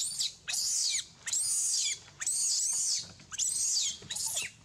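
Baby long-tailed macaque crying: about six shrill, high-pitched screams in quick succession, each rising and then falling in pitch.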